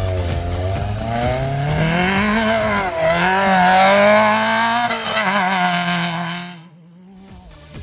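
Off-road race buggy engine revving hard under acceleration. Its pitch climbs steadily, dips briefly about three seconds in, then holds a high note before falling away quickly near the end, with a hiss of tyres spraying dirt over the loudest part.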